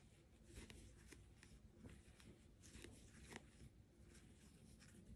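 Near silence with faint rustling and light ticks of a small metal crochet hook working yarn, scattered irregularly.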